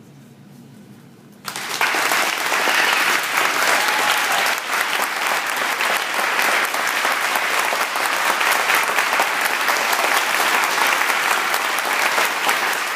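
Audience applause: dense, steady clapping that starts suddenly about a second and a half in, after a brief quiet.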